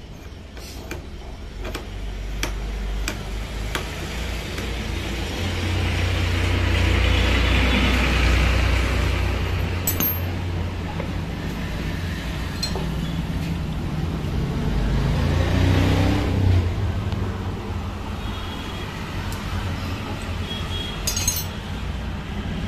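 Road traffic passing, a low vehicle rumble that swells and fades twice, with a few sharp metallic clinks.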